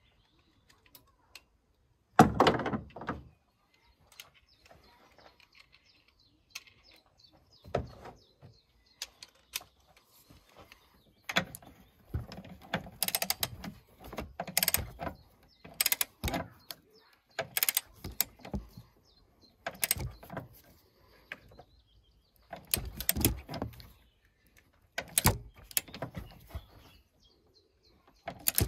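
Ratchet wrench clicking in repeated strokes, about one every one and a half seconds, as the upper engine mount bolt is run down. There is a single loud metal clunk about two seconds in.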